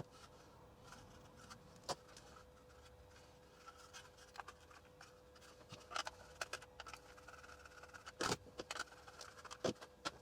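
Sparse light clicks and knocks from the plastic case and circuit board of a handheld calibrator being handled on a workbench, the loudest about eight seconds in, over a faint steady hum.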